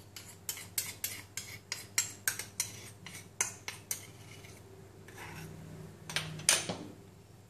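Metal spoon scraping and clinking against a small ceramic dish as it scoops out chili sauce, a run of sharp clinks about three to four a second. Near the end a louder scrape of the spoon stirring in the ceramic bowl.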